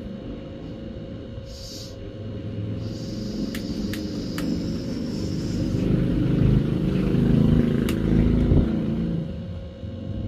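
Handheld gas torch flame burning with a rumbling noise as it heats a motorcycle hub fitting to loosen it. The noise grows louder through the middle and drops near the end, with a few sharp clicks.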